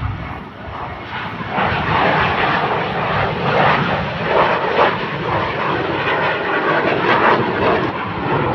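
A jet aircraft flying low in an air show display, its engine noise swelling about a second and a half in and staying loud and rough.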